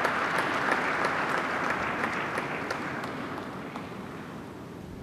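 Audience applauding, many hands clapping at once; the applause dies away over the last two seconds.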